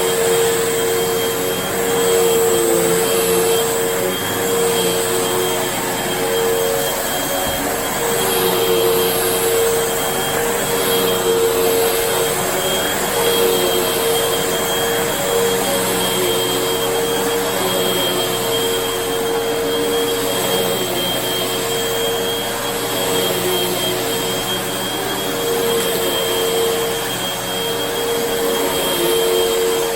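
Vacuum cleaner running steadily, a constant rushing airflow with a steady motor whine.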